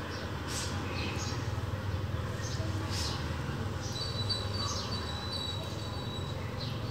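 Outdoor background sound: a steady low rumble with scattered short, high chirps, and a thin high tone held for about two seconds past the middle.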